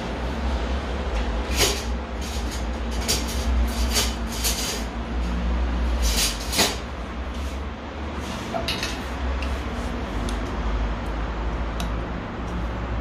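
Kitchen utensils clicking and scraping against dishes or a pan, a few sharp knocks spread through the first half, over a steady low hum.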